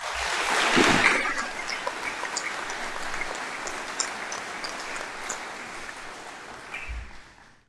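An audience applauding. The clapping swells in the first second, then slowly dies away.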